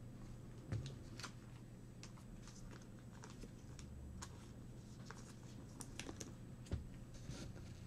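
Faint, irregular light clicks and rustles of trading cards and pack wrappers being handled on a table.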